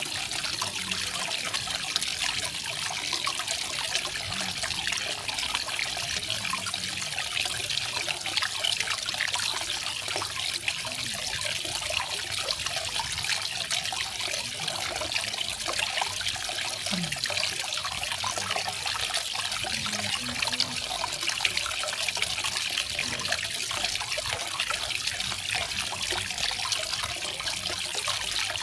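Garden waterfall: water splashing and trickling steadily.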